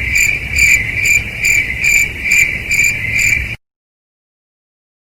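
Crickets chirping, played as a stock sound effect: a steady high trill that pulses about twice a second. It cuts off abruptly about three and a half seconds in, leaving dead silence.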